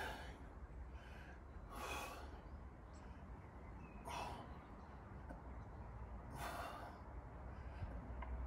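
Heavy breaths of a man doing strict barbell overhead presses, four forceful exhalations about two seconds apart, one for each rep.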